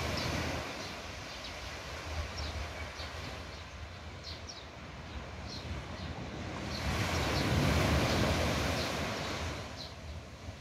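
Small waves washing onto the beach, with wind rumbling on the phone's microphone. The wash swells up loudest about seven seconds in. Faint short high chirps sound here and there.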